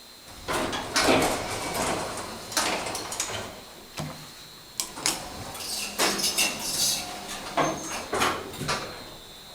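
Elevator's sliding doors in motion, with a run of metallic clunks, rattles and scrapes from the door panels and track over several seconds.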